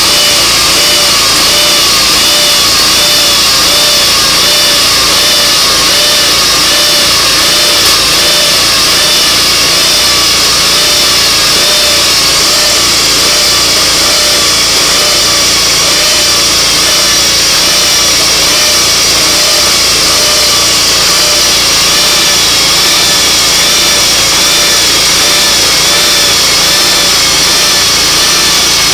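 Portable sawmill running steadily for the whole stretch, its engine's pitch wavering slightly up and down about once a second, with a strong high hiss over it.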